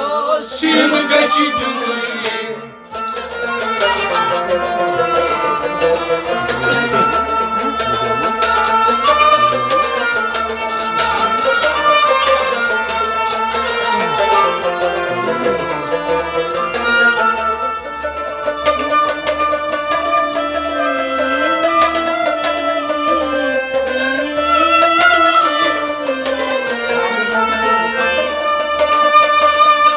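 Kashmiri Sufi folk music: a rabab plays a melody over a steady hand-beaten rhythm on a noot, a clay pot drum. Voices are singing in the first couple of seconds.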